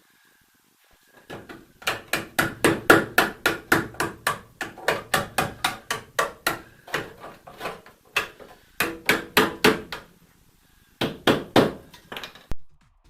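Hammer blows on steel car bodywork in a quick, even run of about four strikes a second, each with a short metallic ring. They pause briefly, then a few more blows come near the end before the sound cuts off suddenly.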